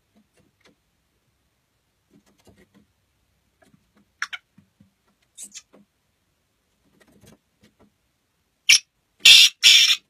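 Black francolin giving a loud, harsh call near the end: four short rasping notes in quick succession. Before that, only faint scattered ticks and a couple of brief sharp sounds.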